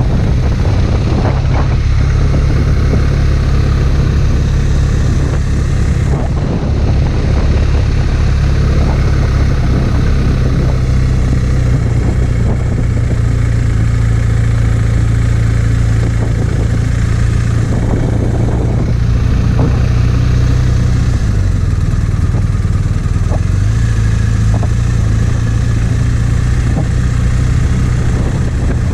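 BMW R1250RT's flat-twin boxer engine running steadily with a deep, even hum; its pitch shifts slightly about two-thirds of the way through.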